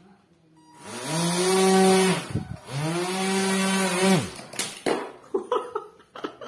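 Small electric motor spinning a propeller on a homemade RC car, whining up to speed and back down twice with a rush of air, each run about a second and a half. Near the end come a string of irregular clicks and knocks.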